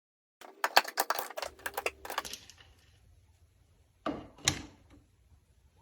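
Aluminium edge clamp being handled and set on a board: a quick rattling run of clicks and clacks for about two seconds, then two sharper knocks about four seconds in.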